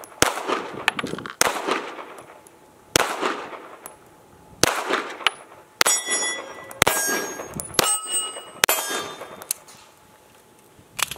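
9mm Walther match pistol fired at a slow, steady pace, nine shots about one to one and a half seconds apart. Several shots are followed by the ringing of a struck steel target plate. The rounds are 9mm handloads with small rifle primers, each one firing.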